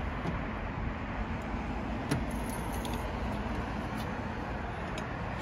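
Steady outdoor background noise while a glue-pull dent puller is drawn on a car's wing, with a faint click about two seconds in. At the very end comes one sharp, loud snap as the glue tab lets go of the panel.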